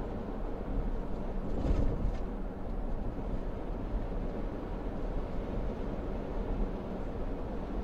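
Steady road and engine noise inside a moving car's cabin, a low rumble from the tyres on asphalt. A brief louder knock about two seconds in.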